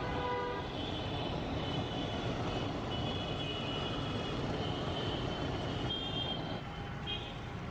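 Handheld blowtorch burning LPG straight from a gas cylinder, its flame running steadily as it is played over the omelette, with butter sizzling on the hot griddle. The sound eases a little near the end.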